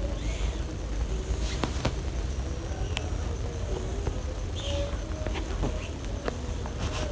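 Domestic cat snoring in its sleep, a few breathy snores over a steady low rumble.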